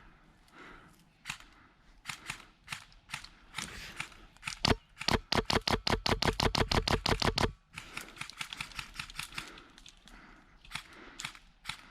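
Airsoft gun firing a full-auto burst of about three seconds, roughly eight shots a second, starting a little under five seconds in. Scattered single snaps and clicks before and after it.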